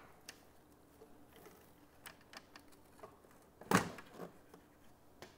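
Handling sounds of the Avid SC48 mixing console's metal fader panel being lifted open: light scattered clicks and rattles, then one sharp knock followed by a smaller one as the panel comes free.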